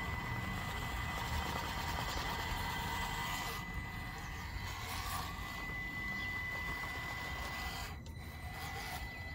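Traxxas TRX4M mini RC crawler's small electric motor and geared drivetrain running steadily as it crawls over wet rocks.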